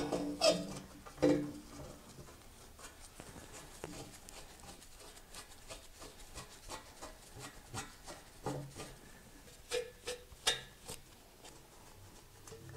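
Kooks steel headers knocking and scraping against the engine block as they are held and shifted into place. A few sharper clinks ring briefly, two near the start and two around ten seconds in.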